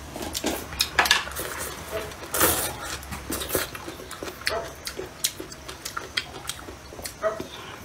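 Wooden chopsticks clicking irregularly against a ceramic bowl, with chewing and mouth sounds of eating.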